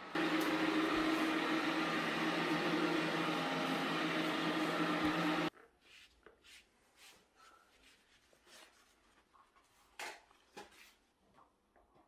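Cordless wet-mop floor cleaner running steadily, its motor and spinning roller brushes giving a low hum under an even whir, cutting off abruptly about five and a half seconds in. After that only a few light handling clicks and a tap.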